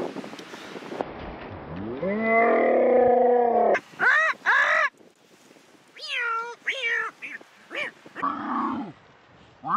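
Animal-like yowling calls without words. One long wail rises and then falls in pitch, and several short, sharply falling yelps and yowls follow.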